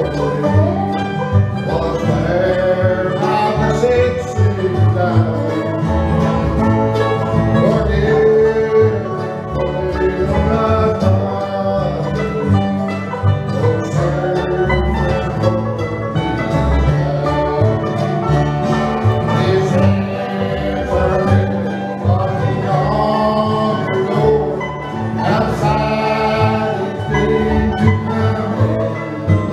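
Live bluegrass band playing: acoustic guitar, mandolin and upright bass with other strings, and voices singing along.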